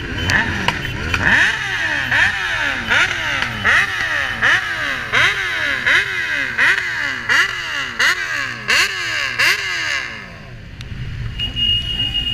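Motorcycle engine revved over and over in a steady rhythm, about a dozen throttle blips, each climbing and falling in pitch; the revving stops about ten seconds in, leaving the lower run of engines.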